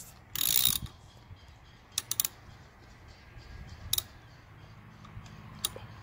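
T30 Torx driver turning the long screw in a Can-Am Ryker's handlebar end: a short loud mechanical burst just after the start, then a few scattered clicks over a low steady hum.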